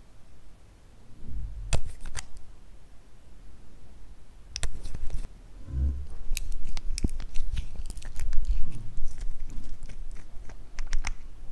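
Small glass nail polish bottles and their brush caps being handled: a string of sharp clicks and taps, few at first and crowding together in the second half, with a dull knock about halfway through.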